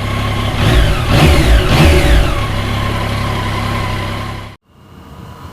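Motorcycle engines running and revving, their pitch sliding down over the first couple of seconds before settling to a steady run; the sound cuts off abruptly near the end.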